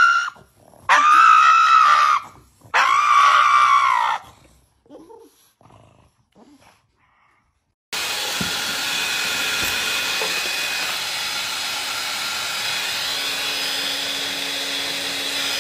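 Pug giving three long, high-pitched cries in quick succession. After a few quiet seconds, a steady rushing noise with a low hum starts abruptly about eight seconds in.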